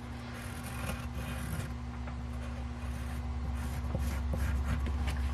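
Pen scratching and rubbing as it is pressed along the lines of a printed paper pattern laid on a wooden cutting board, transferring the lettering onto the wood, over a steady low hum.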